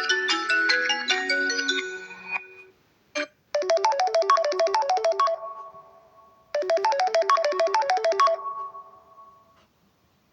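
Samsung Galaxy M32 ringtones playing: a bright mallet-like melody ends a couple of seconds in, then a new ringtone starts, a quick run of short notes played twice, each time leaving a held tone that fades away.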